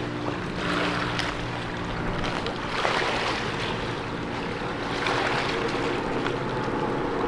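Small waves lapping and washing on a sandy, shelly shoreline, swelling about a second in, again around three seconds and again around five seconds, over a steady low drone.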